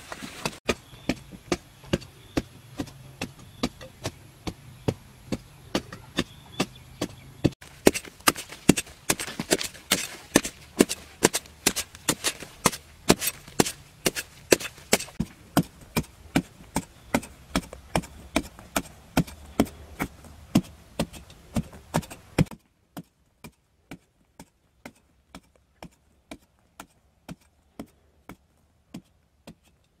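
A metal-bladed digging tool chopping repeatedly into hard, dry soil, around two strikes a second. About two-thirds of the way through, the background hiss drops out and the strikes go on fainter and more spaced.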